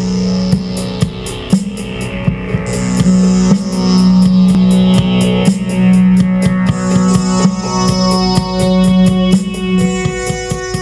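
Intro music: a loud rock track with electric guitar and a steady drum beat.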